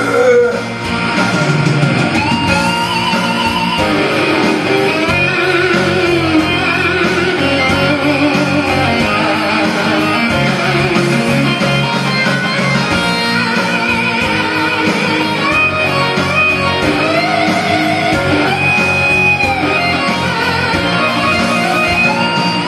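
Karaoke backing track playing an instrumental break: band music with a wavering lead melody over steady accompaniment, and no singing.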